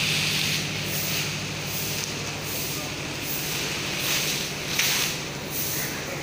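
Electric-motor-driven inclined belt conveyor running: a steady low hum from its geared motor under a hiss of the belt over the rollers that pulses about once every three-quarters of a second, with a brief sharp knock about five seconds in.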